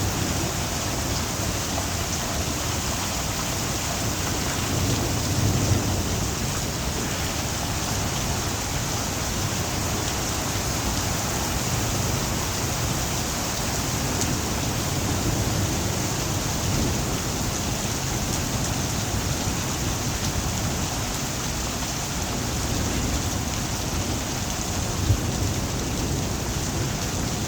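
Steady heavy rain hissing down during a thunderstorm, with low rolling thunder swelling underneath a few times. There is one brief louder hit near the end.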